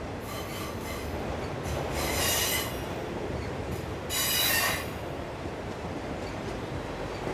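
Freight train of autorack cars rolling past with a steady rumble of steel wheels on rail. Twice, about two and about four seconds in, there is a loud burst of high-pitched wheel squeal, with a fainter squeal near the start.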